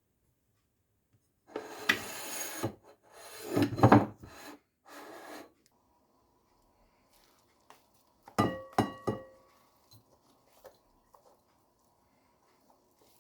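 Kitchen utensil scraping in several short bursts, then a quick run of sharp clinks, like metal striking a dish, that ring briefly about eight and a half seconds in.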